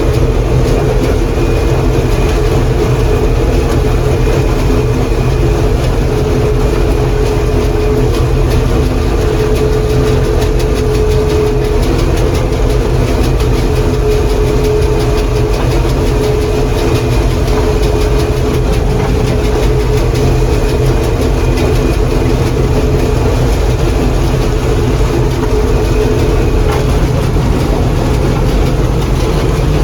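John Deere 4400 combine running steadily while harvesting corn, its engine and threshing machinery giving a constant loud drone with a faint high whine.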